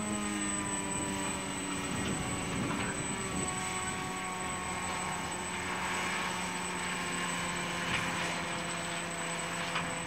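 Slow-moving ballast train rolling past: a steady engine drone over the rumble of the wagons on the rails, with a few faint clicks. The drone drops slightly in pitch right at the start.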